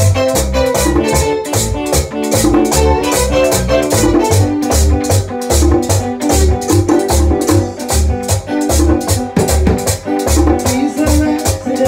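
Live Dominican bachata band playing: electric guitar and bass over a steady, quick percussion beat with an even scraping rattle on every beat.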